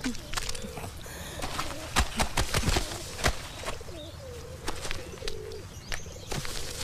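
Pigeons cooing steadily, with repeated sharp slaps and rustles of wet clothes being scrubbed and handled.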